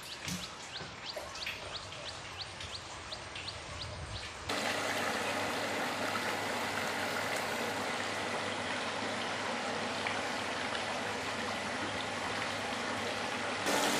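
Birds chirping in a quick repeated series; then, about four seconds in, a sudden change to a steady rush of water from a fountain sprayer falling into a fish tank, aerating water short of oxygen, with a faint steady hum under it.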